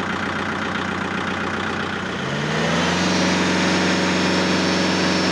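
Kubota MU4501's 2434 cc four-cylinder diesel engine, fitted with a balancer shaft, idling and then revved up about two seconds in, rising smoothly to a steady higher engine speed.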